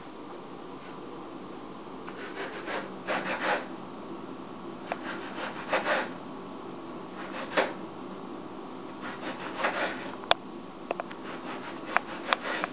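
Short, scattered rubbing and scraping noises with a few sharp clicks after the middle, over a steady low hum.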